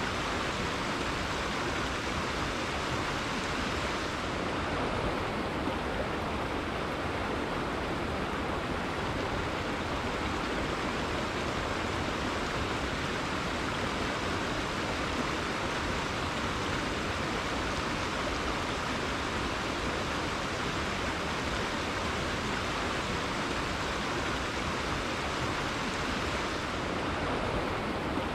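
River water flowing and rushing steadily over rocks.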